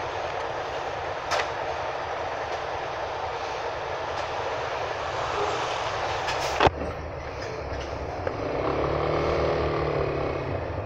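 Yamaha Ténéré 250 motorcycle's single-cylinder engine idling amid steady traffic noise, then revving up and easing off as the bike pulls away near the end. There is a sharp click about two-thirds of the way through.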